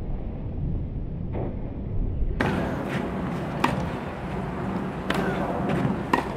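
Tennis balls being struck with rackets: several sharp pops a second or so apart over a steady low outdoor rumble.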